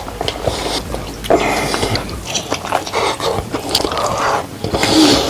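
A person eating katsudon (pork cutlet and egg rice bowl) close to the microphone: biting and chewing, with irregular wet clicks and smacks.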